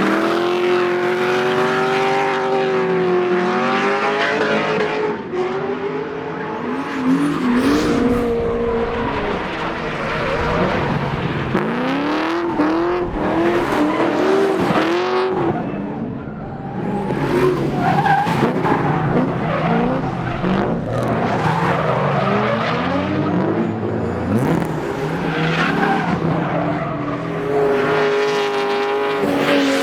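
Cammed 5.7-litre LS1 V8 in an R32 Skyline revving hard, its pitch rising and falling over and over, with tyres skidding and squealing under it.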